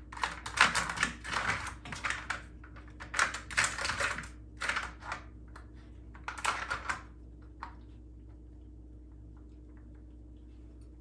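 Hard plastic sliders and lids of a Dog Brick puzzle feeder rattling and clacking against the base as a puppy noses and paws at them, in quick runs of clicking that stop about seven seconds in, leaving only the odd tick.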